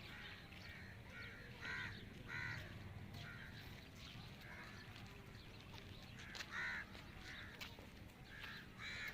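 Crows cawing, short calls repeating every second or so, over a faint, steady low rumble.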